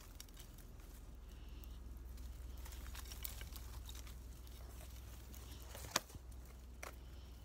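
Faint rustling and crackling of footsteps through dry sticks and brush, with one sharp click about six seconds in.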